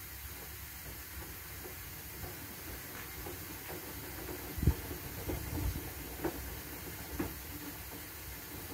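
Two front-loading washing machines, an AEG and a Whirlpool, tumbling wet laundry on a rinse cycle: a steady hiss with irregular thuds and clicks as the load drops in the drums, the loudest thud about halfway through.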